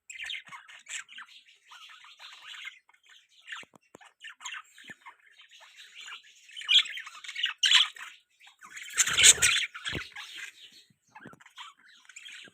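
Pet budgerigars chattering, a rapid run of short chirps and squawks, with a few louder squawks around the middle. About nine seconds in there is a louder noisy burst and then a short knock.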